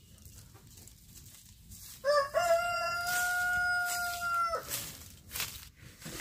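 A rooster crowing once: a stepped opening, a long held note, then a drop in pitch at the end, lasting about two and a half seconds. A short sharp noise follows about a second later.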